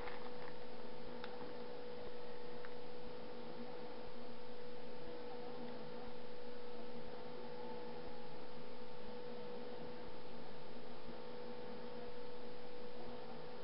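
A steady electrical hum, its level stepping a little up and down in turn about every second.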